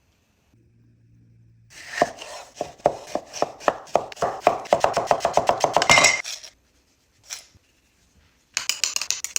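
Kitchen knife chopping quickly on a cutting board, about five strokes a second for some four seconds, followed near the end by a short rush of noise.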